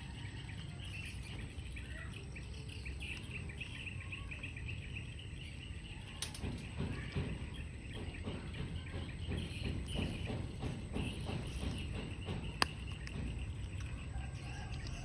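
Background ambience with steady high chirping over a low rumble. From about six seconds in there is a run of soft clicks and rustles, and one sharp click comes near the end.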